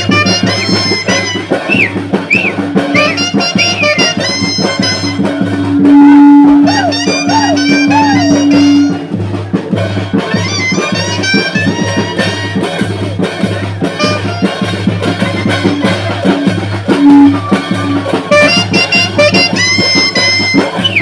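Brass band music with drums keeping a steady beat. A horn holds one long loud note about a quarter of the way in.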